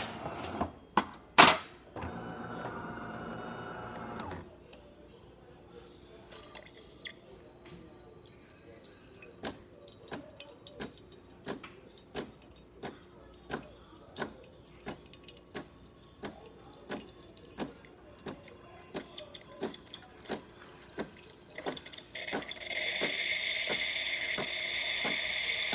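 DeLonghi Magnifica espresso machine cycling after a shot: a few clicks and a short hum, then water dripping steadily, drop by drop, for a long stretch. About twenty-two seconds in, the steam wand opens with a loud, steady hiss of strong steam.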